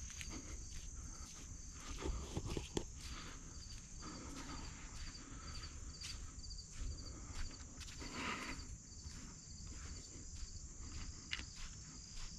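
Insects chirping steadily in a regular pulse, with scattered rustling footsteps in brush.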